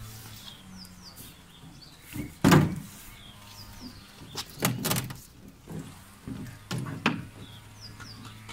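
Plastic awning sheet and its top bracket knocking and rattling as they are bent and pressed into place by hand. It is a series of sharp knocks, loudest about two and a half seconds in. Small birds chirp in the background.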